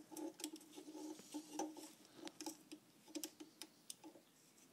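Faint, irregular small clicks and ticks of a hand tool working a nut on a turbocharger, as the nut is tightened.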